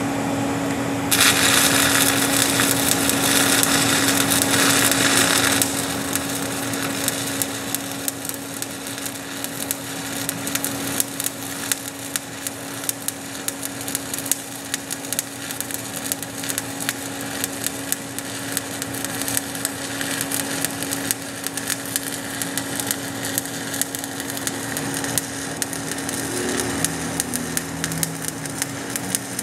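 Stick-welding (SMAW) arc burning a 7018 electrode on a cover pass of an open-root steel pipe joint: it strikes about a second in and crackles and sizzles steadily with many sharp pops. It is loudest and hissiest for the first few seconds, then settles to a steady crackle. A steady low hum runs underneath.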